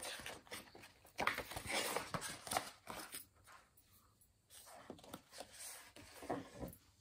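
Glossy pages of a hardback picture book being handled and turned: two spells of paper rustling with small clicks and flaps.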